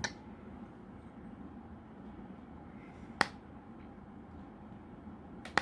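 Three sharp, short clicks from handling the OXVA X pod vape's plastic cartridge: one right at the start, one about three seconds in, and one near the end, over faint room noise.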